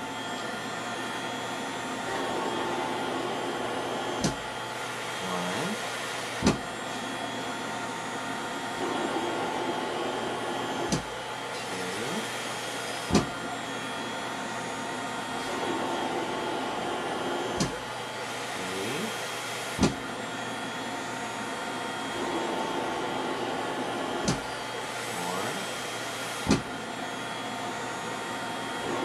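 CoughAssist mechanical insufflator-exsufflator running a set of assisted coughs: a steady blower drone with sharp valve clicks in pairs about two seconds apart, the pairs repeating about every six and a half seconds as it cycles between pushing air into the lungs and pulling it out.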